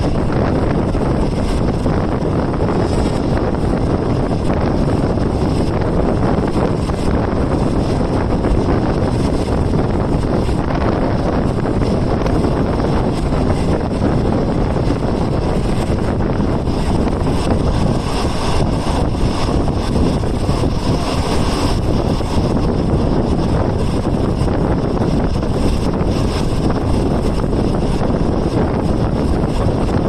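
Wind rushing past the open window of a moving, non-air-conditioned green passenger coach, buffeting the microphone, over the steady running rumble of the train on the track.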